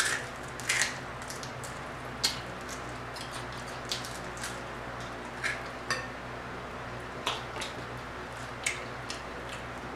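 Close-up eating sounds of fried croaker being nibbled off the bone: scattered short crisp crunches and mouth clicks, roughly one a second, over a faint steady hum.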